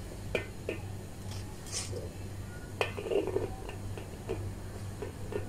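A few light clicks and taps of food being handled on a metal serving tray, with a brief rustle, over a steady low hum.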